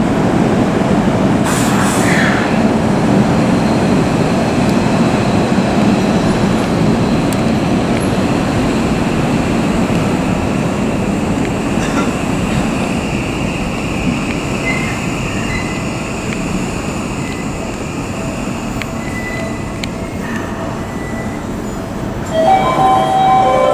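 Seibu 6000 series electric commuter train running into a station platform, its running noise slowly fading as it slows to a stop. Near the end a sudden louder sound with several steady tones starts.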